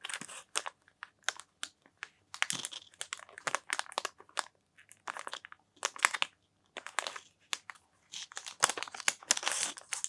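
Packaging of a board game expansion being handled and opened: irregular crinkling, crunching and tearing strokes of wrapper and card.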